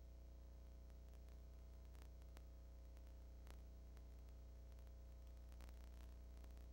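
Near silence: a steady low electrical hum with faint scattered clicks of static, and no sound from the game.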